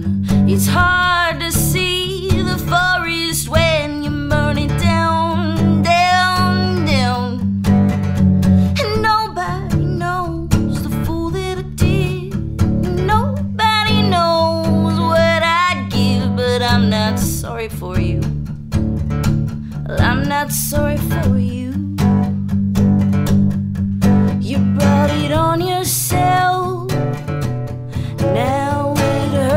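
A song played on acoustic guitar with a woman singing the lead vocal over it, her voice wavering on held notes.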